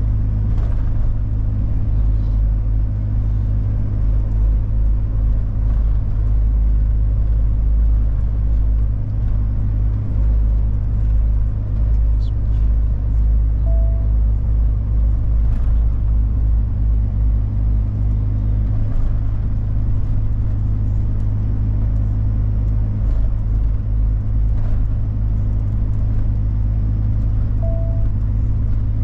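Heavy truck's engine and road noise heard from inside the cab while driving: a steady low drone and rumble. A short beep sounds twice, about 14 and 28 seconds in.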